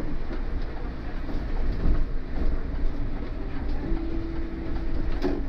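City bus driving, heard from on board: a continuous low rumble of engine and road with rattling. A steady hum starts about four seconds in, lasts just over a second, and ends with a sharp knock.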